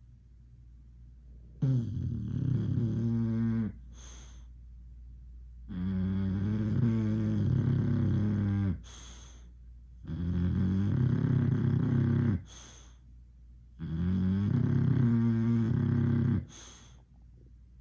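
English Bulldog snoring in a slow rhythm: four long, low snores of two to three seconds each, about one every four seconds, each followed by a short hissing breath.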